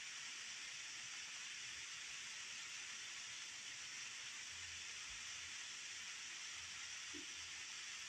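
Waterfall water pouring steadily down a rock face: an even, unbroken hiss.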